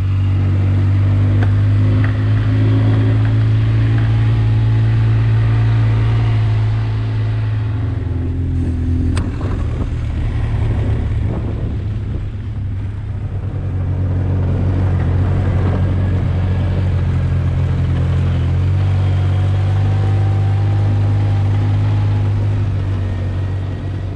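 ATV engine running steadily as the quad rides along. Its drone weakens for a few seconds around the middle, then comes back strong.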